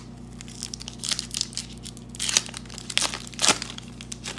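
Foil wrapper of a hockey card pack being torn open and pulled apart by hand: irregular crinkling and crackling, loudest a little after two seconds and again around three and a half seconds in.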